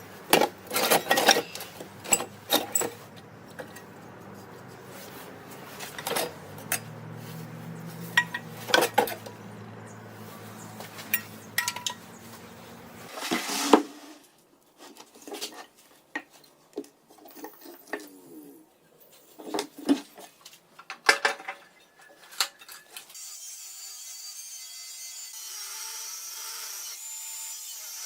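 Hand work on metal parts: a series of sharp clanks, knocks and scraping rubs, irregularly spaced, with a steadier high hiss in the last few seconds.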